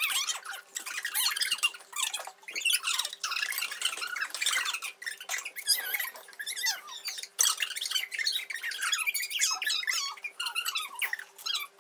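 High-pitched, squeaky chatter of voices from fast-forwarded audio. Speech sped up into a chipmunk-like jabber with quick, darting pitch swoops and no normal low voice sound.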